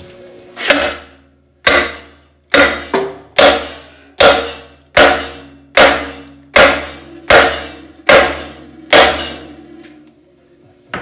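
Sledgehammer striking a welded-on steel bracket on a tractor frame, about a dozen heavy blows a little under a second apart, each ringing out. The blows are meant to break the edge-ground weld free.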